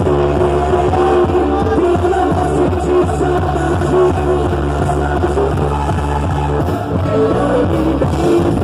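Loud quadrilha junina dance music with singing, playing steadily over a held bass line.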